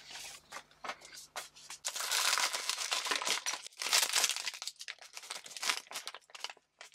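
A foil blind-box bag crinkling and tearing open in the hands, with dense crackles. It starts as softer rustling and grows louder about two seconds in.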